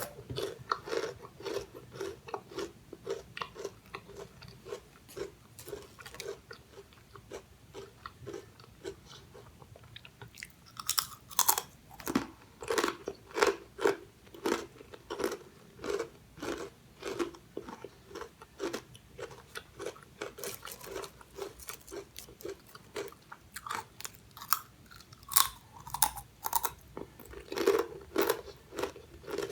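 Close-up crunching and chewing of crisp fried snack chips, banana chips or fish crackers, a steady run of sharp crunches about two a second with louder bites now and then.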